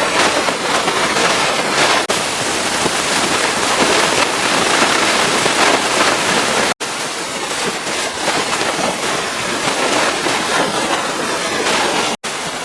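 Pressure washer spraying a high-pressure jet of water against the truck, a loud steady hiss. It cuts out for an instant twice, once around the middle and once near the end.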